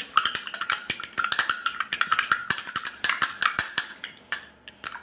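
Glass stirring rod clinking rapidly and unevenly against the inside of a glass beaker during stirring, many sharp ringing taps.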